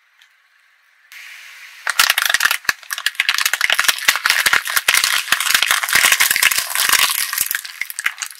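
Clear plastic blister packaging crackling and crunching under a car tyre as the tyre rolls slowly onto it and flattens it. The dense, irregular crackling starts about two seconds in and keeps going for about six seconds.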